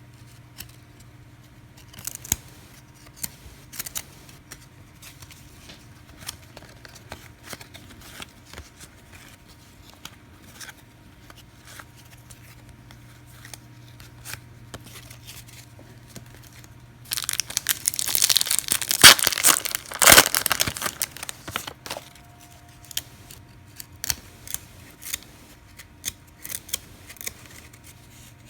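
Trading cards being handled, with small scattered flicks and clicks. About two-thirds of the way through, a card pack's wrapper is torn open with a loud crinkling tear lasting about five seconds.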